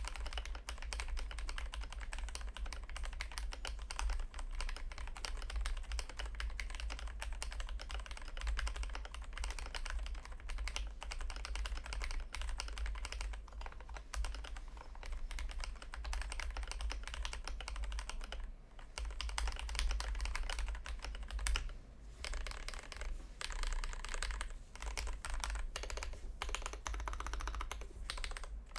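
Fast, continuous typing on a Glorious GMMK Pro keyboard with a polycarbonate switch plate, factory-lubed Gateron Cap Milky Yellow linear switches and XDA PBT keycaps: a dense run of key clacks, with a brief pause a little after halfway and a few short gaps near the end. A steady low hum lies underneath.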